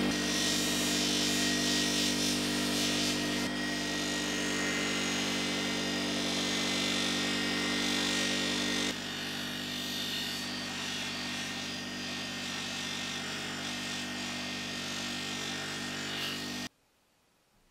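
Bench polisher motor running at full speed with a steady hum, and a hiss of the copper radiator piece being buffed against its spinning wheel. The sound steps down about halfway through and cuts off abruptly near the end.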